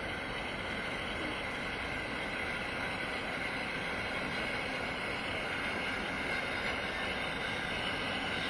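Approaching train heard from a distance: a steady rumble that grows slowly louder, with a faint steady hum in it.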